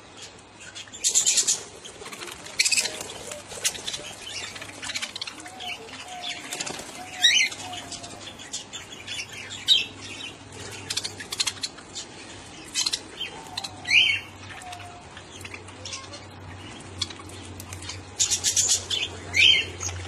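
Pet budgerigars and cockatiels chirping and chattering, with bursts of wing flapping as birds fly on and off a perch. A few sharp rising calls stand out about 7, 14 and 19 seconds in.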